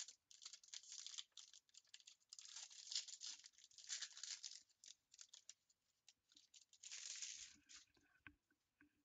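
Plastic wrapping on trading cards being torn open and crinkled by hand: quiet short rips and rustles, with longer tears a few seconds in and again near the end.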